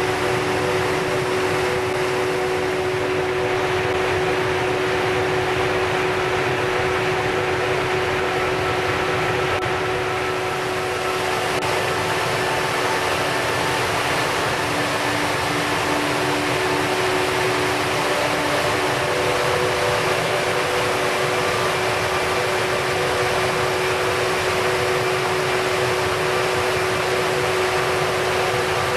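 Mountain stream and waterfalls rushing through a narrow gorge: a loud, steady wash of water noise, with a few faint held tones underneath.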